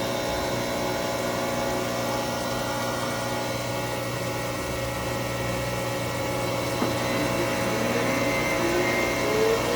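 Fuji Sanki double disk grinder running, a steady machine hum made of several constant tones over a low drone. From about seven seconds in, faint tones slide up and down over it, with a small click as they begin.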